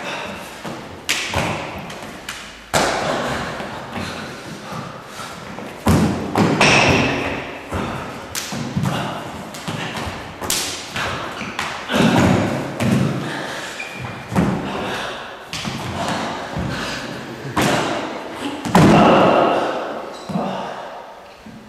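Stage-combat fight routine: irregular thuds and slaps of feet stamping, blows landing on bodies and bodies hitting a studio floor, the loudest near the end as both fighters go down.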